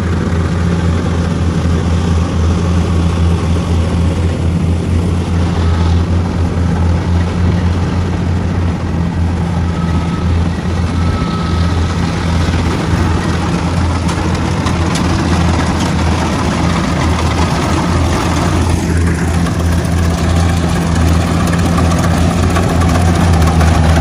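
Kubota rice combine harvester's engine running steadily as it harvests, a loud, even low drone.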